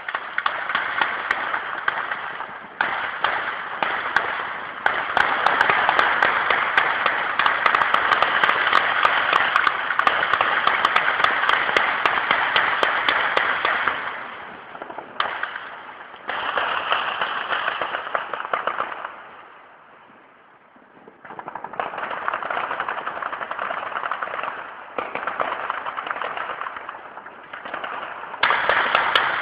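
Heavy, sustained automatic gunfire: many weapons firing at once in dense overlapping bursts. It eases a little before halfway, dies almost away about two-thirds in, then picks up again.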